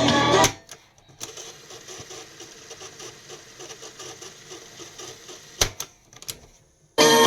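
Music cuts off, then a boombox cassette mechanism runs with a faint, fast mechanical rattle for about four seconds. A sharp click and a second, lighter click follow, like the transport keys being pressed, and the music starts again near the end.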